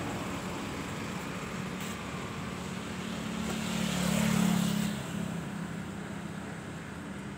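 Steady hum and running noise of a moving vehicle heard from inside it, swelling into a louder rush about four seconds in as it passes close by a roadside structure.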